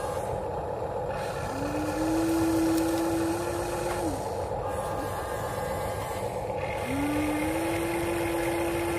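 Huina 1593 RC excavator's electric motors whining twice as the boom and bucket move, each whine rising in pitch and then holding steady for about two and a half seconds, over a steady low rumble.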